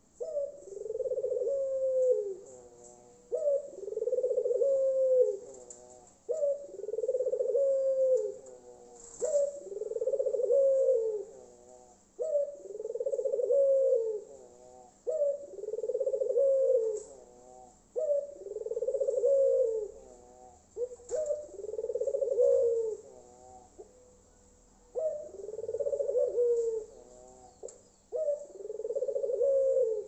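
Caged puter tangerin (Iraqi collared dove) cooing, with about ten drawn-out, low coos, each roughly two seconds long and repeated every three seconds or so, and a longer pause a little past the middle. The voice is loud: the bird is in full song (manggung).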